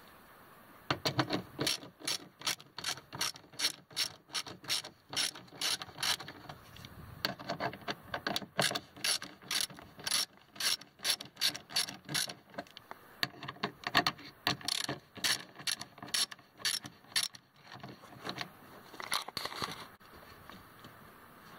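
Hand socket ratchet clicking as it turns a mounting bolt of a power window motor, a couple of clicks a second, pausing near the end before a few more clicks.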